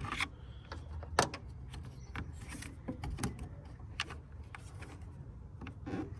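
Small scattered clicks and taps of a socket on a long extension bar turning out a headlamp-mount screw by hand, with one sharper click about a second in. A steady low hum runs underneath.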